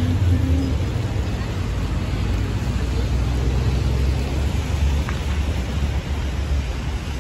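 City street traffic on a rain-wet road: a steady low rumble of passing vehicles with the hiss of tyres on wet tarmac.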